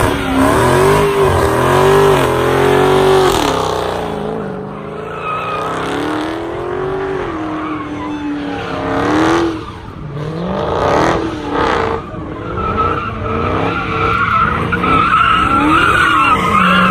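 Dodge Charger doing a burnout and donuts: the engine revs up and down hard while the rear tires spin. In the second half a high, steady tire squeal rides over the engine, stopping near the end.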